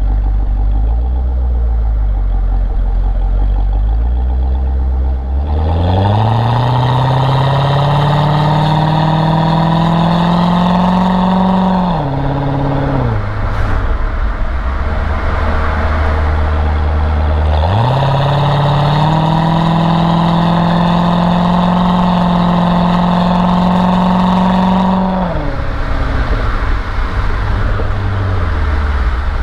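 Chevrolet Corvette C6 V8 engine idling, then revved up twice, each time held at high revs for about six or seven seconds with its pitch slowly climbing, before it drops back to idle.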